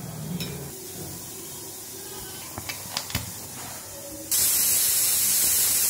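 A few light metal clicks as the steel puttu tube is handled, then steam hissing loudly and evenly from the puttu steamer for about two seconds, starting and stopping abruptly.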